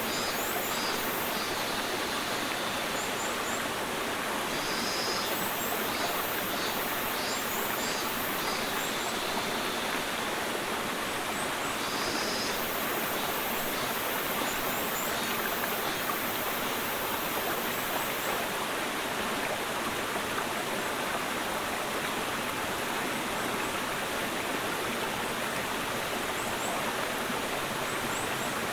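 Clear mountain stream flowing over rocks in a steady, even rush, with faint high chirps now and then above it.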